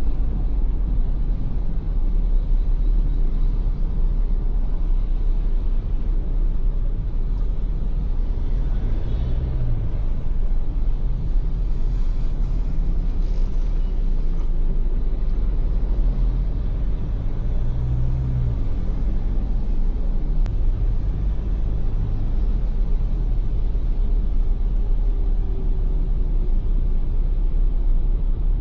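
Ford Everest SUV on the move: a steady low rumble of engine and road noise, with a low engine note swelling briefly twice, about a third of the way through and just past halfway.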